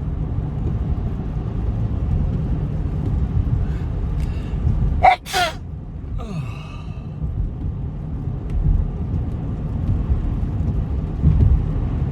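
A person with a head cold sneezes once about five seconds in: a short gasping intake, a loud explosive sneeze, then a falling sigh. A steady low rumble runs underneath.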